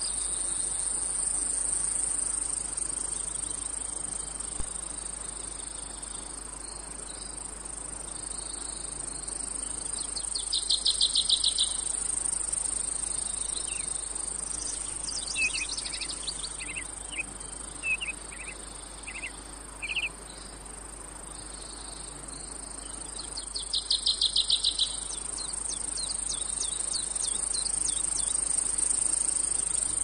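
Cicadas buzzing in a continuous high-pitched drone, swelling twice into louder, rapidly pulsing trills, with a few short chirps near the middle.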